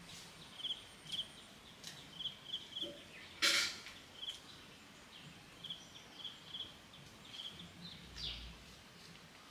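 A small bird giving short high chirps, often in twos and threes, over a quiet background. A brief sharp noise about three and a half seconds in is the loudest sound.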